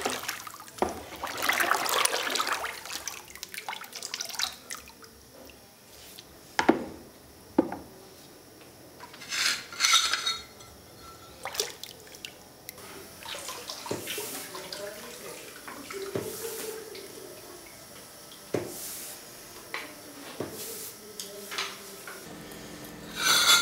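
Liquid tile glaze being stirred and sloshed in a plastic bucket, then scooped and poured over a bisque tile, with splashes and pouring. Sharp clicks and knocks of hard things against the bucket come every second or two.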